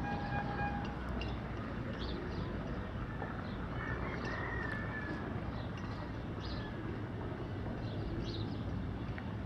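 Outdoor town ambience: a steady low rumble with short high bird chirps repeating every second or so, a brief steady pitched tone right at the start, and a short pitched call about four seconds in.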